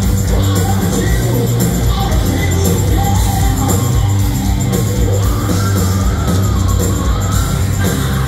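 Hard rock band playing live at full volume, with a voice singing over steady bass and drums.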